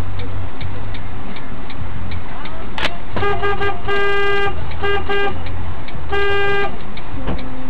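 A sharp bang, then a car horn honking in seven blasts: three quick taps, a longer blast, two more taps and a final long blast. A steady ticking and a low engine hum run underneath.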